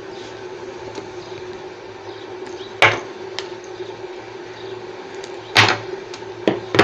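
A few sharp knocks and clicks of a pedestal fan's metal motor housing and tools being handled during disassembly: one about three seconds in and a cluster near the end. A steady low hum runs underneath.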